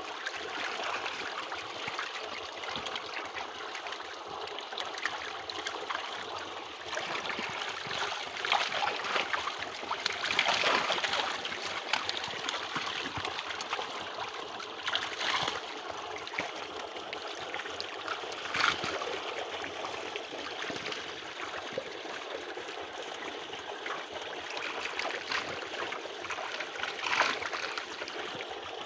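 Water splashing and churning steadily as crowded tilapia thrash in shallow pond water while being scooped with a hand net, with louder splashes every few seconds.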